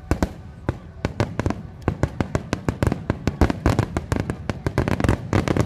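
Fireworks exploding in rapid succession: a dense run of sharp cracks and bangs, several a second, over a low rumble.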